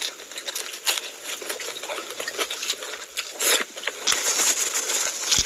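Close-miked eating: chewing and mouth smacks as a handful of rice and curry is eaten, with fingers squishing and mixing rice and curry on the plate in the second half. A dense run of small clicks and crackles.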